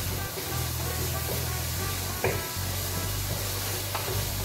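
Chicken pieces sizzling as they fry in oil in a black pan, stirred with a wooden spatula, which knocks or scrapes against the pan about two seconds in and again near the end.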